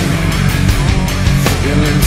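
Loud rock music with drums and a pitched melody line, an instrumental stretch of the song.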